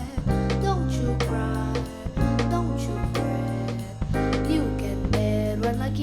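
Small jazz band of violins, piano, bass and drums playing a jazz waltz: low bass notes changing about every two seconds under a wavering melody line, with light regular drum and cymbal strokes.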